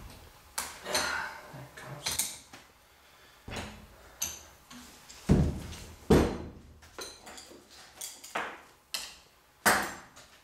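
Metal wrench clinking and knocking against the cylinder bolts of a Yamaha YZ250 two-stroke engine as the tight jug bolts are worked loose: irregular sharp clanks, the loudest a little past five and six seconds in and again near the end.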